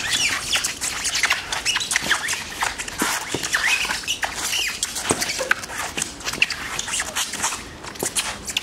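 A group of children squealing and calling out in short excited yelps, over frequent sharp clacks.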